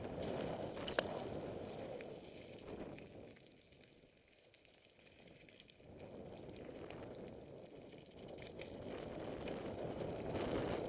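Mountain bike rolling fast downhill over loose slate gravel: a steady rough rush of tyres on stones and the bike rattling, with a sharp knock about a second in. It quietens for a second or two near the middle, then builds again.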